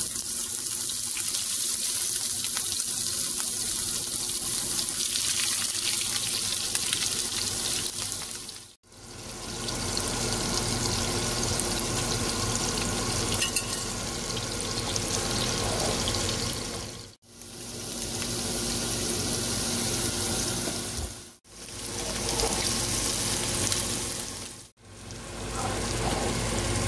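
Shrimp sizzling in hot olive oil in a nonstick frying pan, a steady, dense hiss. It breaks off for a moment four times, each time the picture cuts, and comes back each time.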